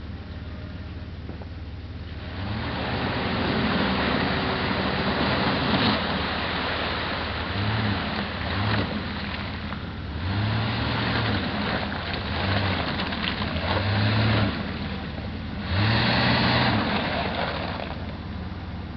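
Ford Ranger pickup's engine revving up and down again and again as it pushes through deep mud, the tyres churning; after a quieter first two seconds it runs loud, with the hardest rev near the end.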